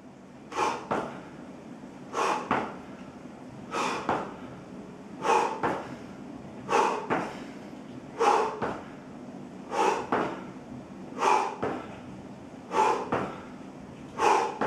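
A man's hard breathing during squat jumps, a pair of short forceful puffs of breath with each jump, about once every one and a half seconds, ten times.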